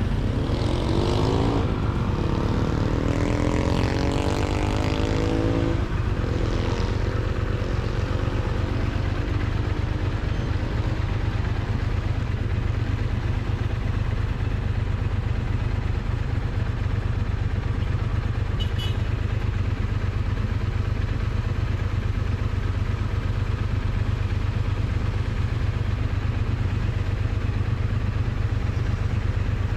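Triumph Bonneville T100 parallel-twin engine and exhaust under way, heard close to the exhaust pipe. Its pitch rises as it accelerates during the first few seconds, then it settles into a steady low drone.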